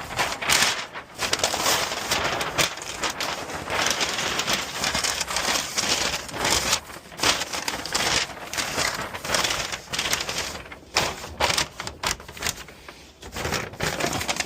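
Packing material being crumpled and stuffed into a cardboard box: a continuous crinkling and rustling, full of small crackles and clicks.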